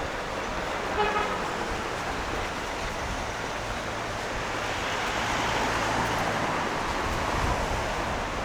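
Street traffic: a short car horn toot about a second in, then a vehicle passing that swells and fades.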